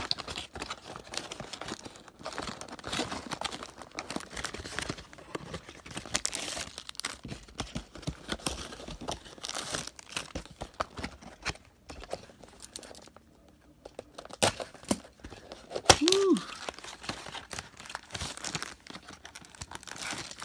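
Thin clear plastic bags crinkling and a cardboard toy box rustling as they are handled, in irregular bursts of crackles with a short lull past the middle. A brief pitched sound stands out as the loudest moment about three-quarters of the way through.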